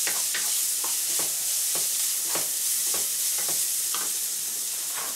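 Chopped onion, cabbage and carrot with spices sizzling in oil in a frying pan, with a wooden spatula scraping and stirring through them in strokes about twice a second over the steady sizzle.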